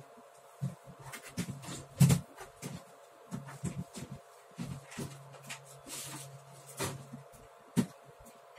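Someone rummaging through stored items: a run of irregular clicks, knocks and rustles as things are picked up and moved about. The sharpest knocks come about two seconds in and near the end.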